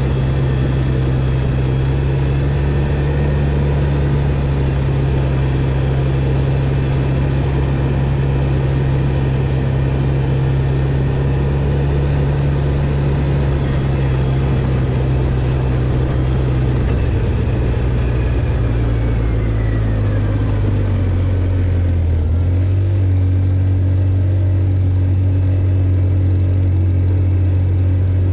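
ATV engine running steadily under load while driving up a dirt track; its pitch drops a step about two-thirds of the way through.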